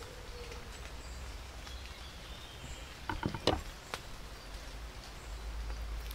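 Quiet outdoor garden ambience with a steady low rumble. About halfway through there is a quick run of short clicks followed by one sharper knock.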